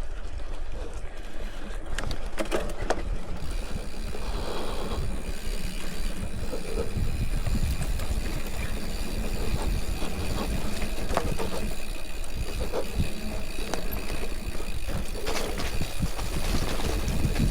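A Giant Fathom hardtail mountain bike being ridden: a steady low rumble of tyres and wind on the chest-mounted camera, with scattered clicks and rattles from the bike over rough ground.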